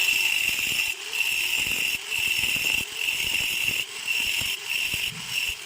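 A homemade mixer running with a steady high-pitched whine that dips and resumes about once a second.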